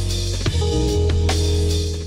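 Background music with a deep bass line, held chords and drum hits.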